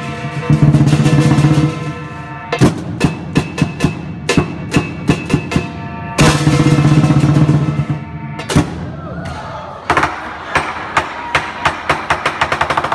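Lion dance percussion, the big Chinese lion drum with gong and cymbals, played live. It goes in rolled passages, one at the start and another about six seconds in, with sharp accented strikes about two to three a second between them, quickening near the end.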